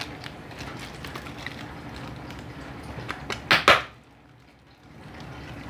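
Plastic fish-shipping bag rustling and crinkling as it is handled, with light scattered rustles and two short, loud crinkles about three and a half seconds in.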